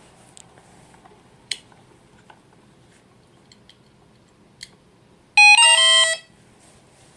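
Brushless motor driven by a Hobbyking 40A F-40 ESC beeping a quick run of short stepped tones lasting under a second, about five seconds in. This is the ESC's power-up or arming tone sequence. A few faint clicks come before it.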